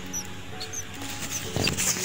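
Newly hatched tailorbird nestlings peeping, a string of short, very high squeaks as they gape to beg for food. Background music with sustained guitar-like notes runs underneath, and there is a brief rustle near the end.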